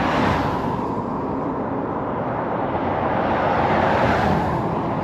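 Road traffic passing close by: a steady rush of engine and tyre noise that swells as vehicles go past, with no horn sounding.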